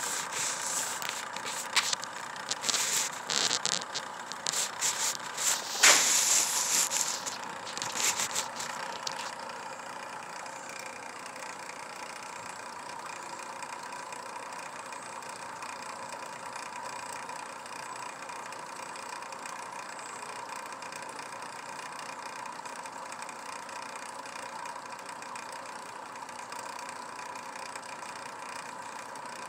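Steady motor hum with a constant tone. For the first nine seconds or so it is covered by loud, irregular rustling and crackling, with a sharp knock about six seconds in.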